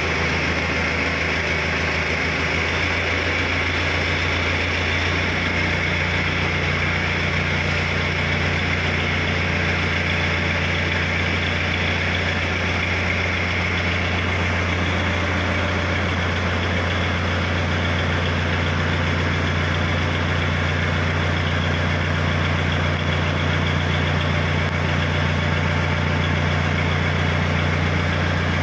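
Diesel engine of an ACE FX150 pick-and-carry hydraulic crane running steadily while its boom lifts a steel crane girder, the pitch shifting slightly a couple of times.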